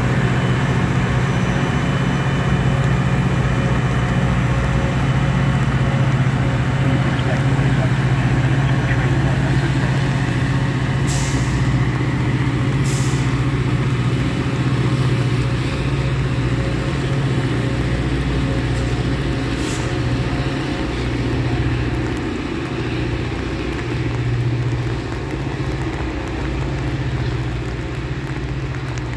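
Caltrain F40PH diesel locomotive running with a steady low drone as the train pulls away, fading over the last several seconds. There are three short hisses, about 11, 13 and 20 seconds in.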